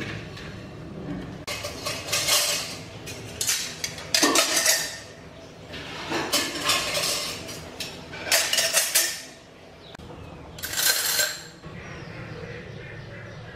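Stainless steel spoons, ladles and spatulas clattering against each other and their ceramic holders as the holders and cups are picked up and set down, in about six separate bursts of clinking.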